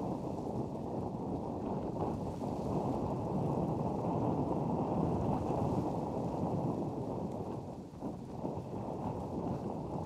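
Wind buffeting the microphone: a steady low rumble of wind noise, with no bird calls heard, that dips briefly about eight seconds in.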